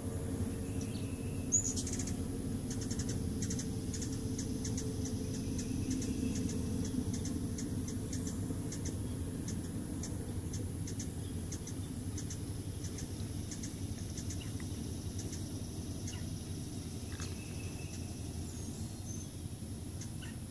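Outdoor backyard ambience: short high bird chirps and ticks, thickest in the first half, over a steady high insect drone and a low rumble.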